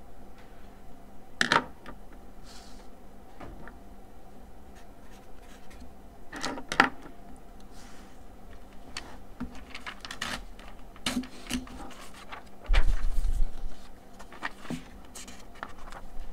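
Sheets of paper rustling and being shifted, with scattered light clicks and taps and a dull thump about 13 seconds in, over a faint steady hum.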